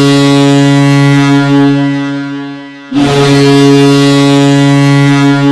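Ice hockey goal horn: a loud, steady, low horn blast with many overtones fades out about two and a half seconds in. A second blast starts sharply about three seconds in and holds.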